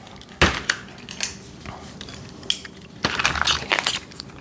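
Vacuum-sealed foil pouch holding a spool of welding wire being crumpled and torn open by hand, the stiff foil crinkling and crunching. There is a sharp crackle about half a second in and a louder burst of crinkling about three seconds in.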